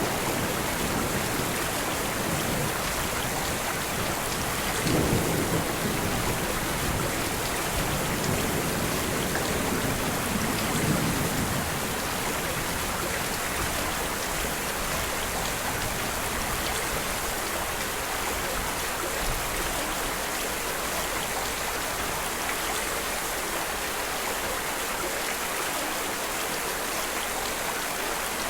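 Steady rain with low rolls of thunder, one about five seconds in and a longer one a few seconds later; after that the rain goes on alone.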